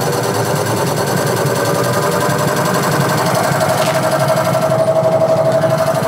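A 6.5 kg Whirlpool top-load washing machine running, a steady mechanical hum and rattle. Its main tone rises slightly and grows louder over the last few seconds. The machine is working properly again after its control board was repaired.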